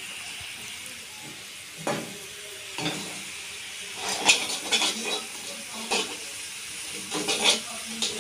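Instant noodles sizzling and hissing in a hot wok. A spoon stirring them gives a few louder clatters against the pan, the loudest a little after four seconds.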